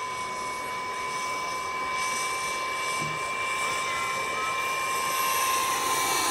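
Turbine-powered RC scale model Bell 206B-3 JetRanger helicopter in flight: a steady high whine from its gearbox over the rotor noise, growing louder towards the end as it comes closer.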